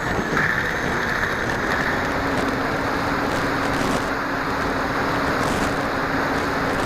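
Steady rush of air and motor noise from an FPV model aircraft heard through its onboard camera in flight, with a faint steady tone from the motor and propeller joining about two seconds in.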